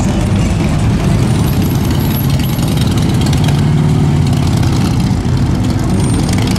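Car engines idling and moving off from traffic lights, then two cruiser motorcycles, a touring bike and a chopper, accelerating away; their deep engine rumble is loudest a little past halfway.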